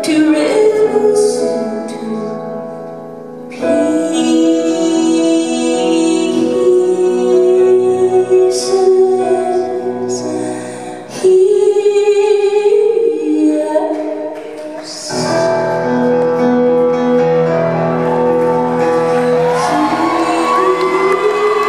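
Live concert performance: a woman singing long held notes over piano chords, with the reverberation of a large hall.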